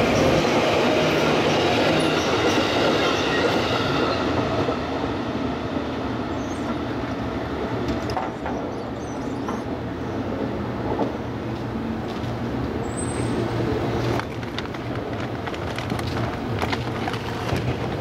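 JR Tokai electric train passing over a level crossing, loudest at first and fading away after about four seconds into steady, quieter street noise with a low hum.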